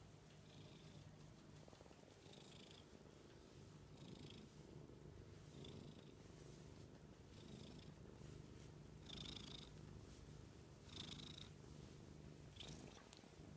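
Black-and-white domestic cat purring steadily while being stroked, quiet and close up, with a soft hiss recurring every one and a half to two seconds.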